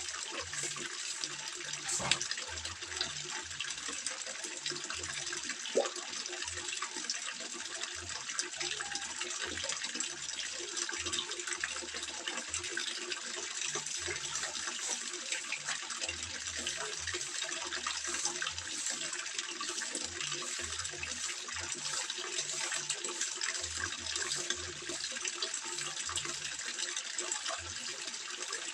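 Water trickling and splashing steadily into a koi pond, with two brief sharp knocks, about two seconds in and again near six seconds.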